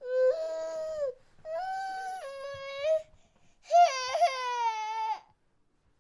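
Baby crying in three drawn-out wails, each one to one and a half seconds long, with short pauses for breath between them.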